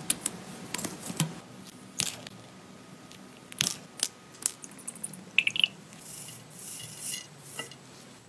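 Scissors and tweezers working thin sheet metal peeled from a battery: a string of sharp clicks and snips, busiest around the middle. Near the end comes a couple of seconds of soft hiss.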